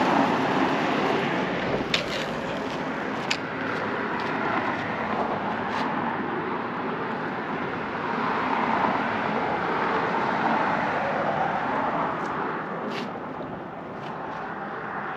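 Steady rush of road traffic on the highway bridge alongside, swelling and easing as vehicles pass. A few sharp clicks stand out against it.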